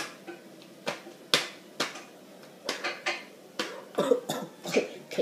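A series of irregular sharp clicks and taps, about a dozen over five seconds.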